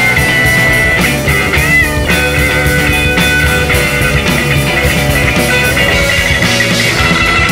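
Rock music soundtrack with electric guitar and drums, with a guitar note bending in pitch about two seconds in.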